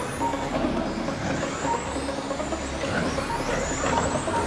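1:10 scale electric RC touring cars racing on an indoor carpet track: high-pitched motor whines rising and falling as the cars accelerate and brake, over a steady echoing hall noise. Short beeps sound now and then.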